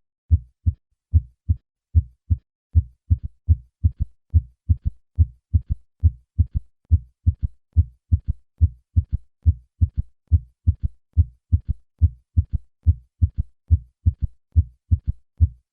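Heart sounds: a steady run of low-pitched thuds, each beat's first and second sounds followed in early diastole by an extra third heart sound (S3, a ventricular gallop). This is a sound that may be the earliest clue to heart failure.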